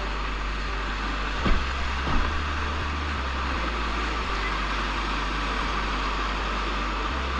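Rushing whitewater of a river rapid around a raft, a steady noisy rush, with a couple of thumps about a second and a half and two seconds in.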